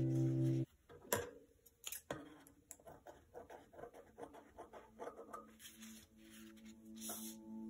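Kitchen scissors snipping through a sheet of thin, dry lavash flatbread, with sharp clicks of the blades and crisp crackling of the bread. Ambient music stops abruptly under a second in and comes back faintly near the end.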